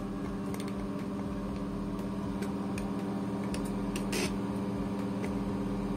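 Steady mechanical hum from a running machine, with scattered light ticks and an occasional sharper click.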